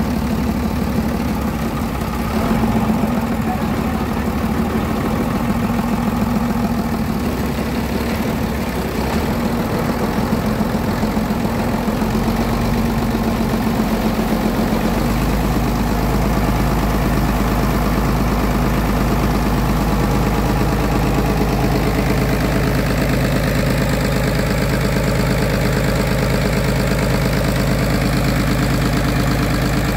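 Large engine of a pond-draining water pump running steadily; its sound changes about halfway through and then holds steady.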